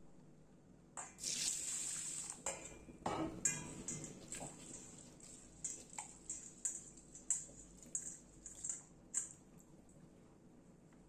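Water splashing into a steel bowl of red lentils about a second in, then a run of short wet swishes and light knocks against the steel as the lentils are rubbed by hand to wash them.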